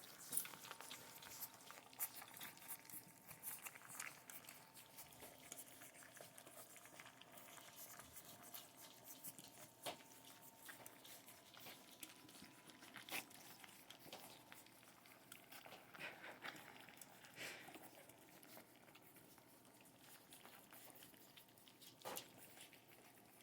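A litter of five-week-old puppies eating, with faint, scattered smacking and clicking from their lapping and chewing.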